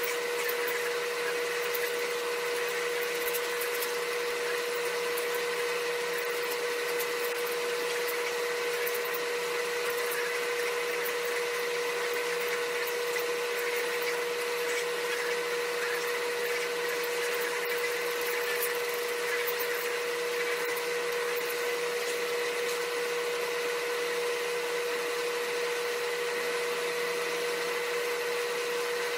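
A steady mechanical hum with a constant whine that does not change throughout.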